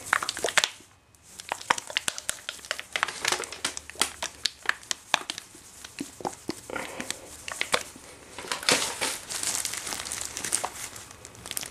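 Plastic gloves crinkling and rustling in irregular crackles as gloved hands handle a plastic hair-dye applicator bottle, with a short lull about a second in.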